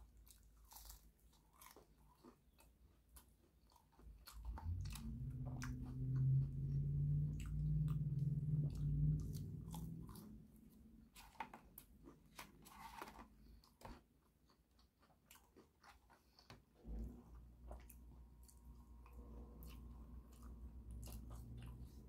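Close-up chewing and biting of a toasted grilled-cheese melt sandwich with a crunchy Parmesan crust, with many small crackles and wet mouth clicks. A low hum sits under the chewing from about four to ten seconds in and is the loudest part.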